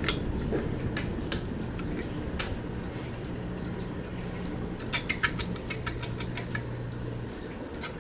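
Ceiling fan motor humming low and steady, with a few clicks about five seconds in; the hum stops near the end as the fan is switched off.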